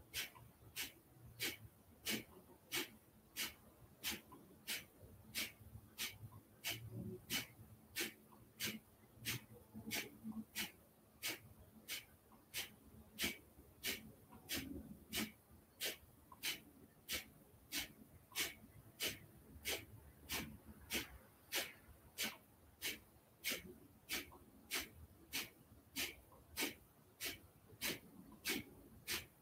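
Kapalabhati breathing: sharp, forceful exhalations through the nose, evenly paced at about three every two seconds.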